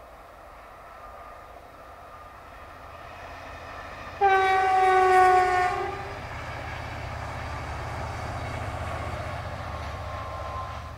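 Push-pull passenger train passing: the leading driving van trailer sounds one long horn note of about a second and a half that drops slightly in pitch. Then a low rumble builds as the train goes by with its Class 67 diesel locomotive pushing at the rear.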